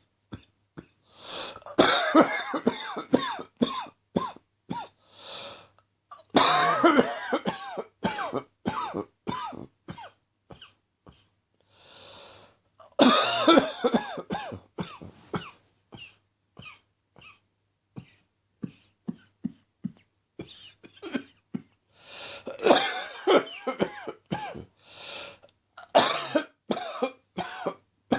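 A person's chesty morning cough, coming in five fits of many rapid coughs, with single coughs and breaths in the gaps between fits.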